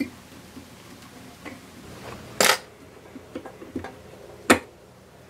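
Small clicks and taps from hands tying a fly at a table, the two loudest about two seconds apart, over faint room tone.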